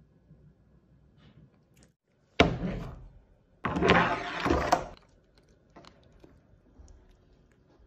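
A sharp knock, then about a second later a louder scraping clatter lasting just over a second, as a large Tasmanian giant crab's hard shell is handled and set down on a hard cutting board.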